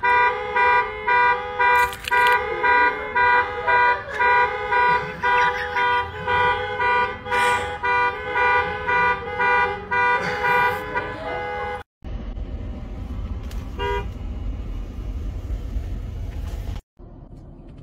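Car alarms going off, their horns honking in a steady rhythm about twice a second. After about twelve seconds this cuts off abruptly and gives way to a low rumbling noise, which stops shortly before the end.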